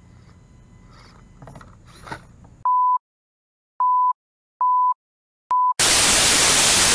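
Film-leader countdown sound effect: four short, identical high beeps about a second apart with dead silence between them, then a loud, even hiss of TV static from about six seconds in. Before the beeps, only faint small clicks.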